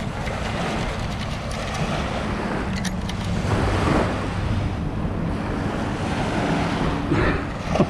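Wind buffeting the microphone over steady beach surf, with thin clicks and rattles of sand and debris being shaken through a metal sand-sifting scoop in the first few seconds.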